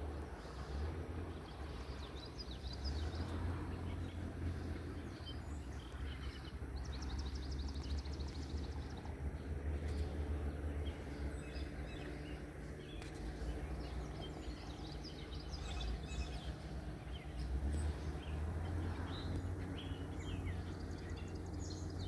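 Outdoor marsh ambience: a steady low rumble with songbirds calling and chirping, including a rapid trill about seven seconds in.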